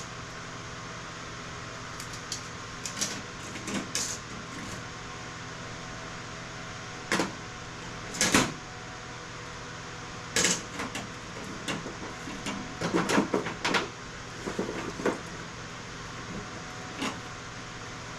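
Circuit boards being handled and dropped onto a pile, making scattered knocks and clatters, loudest about 8 seconds in and in a quick run around 13 seconds, over a steady fan hum.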